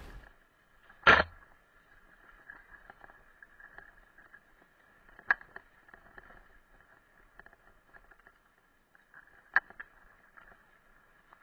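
Quiet trail audio from a helmet-mounted camera on a mountain bike: a faint steady high hiss with small rattles, broken by three sharp knocks, the loudest about a second in and the others about five seconds in and near the end, as the bike jolts over the dirt singletrack.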